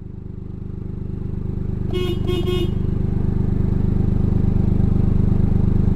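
Toyota GR Yaris's 1.6-litre turbocharged three-cylinder engine idling, heard from inside the cabin, a steady low drone that grows gradually louder. About two seconds in, three short beeps.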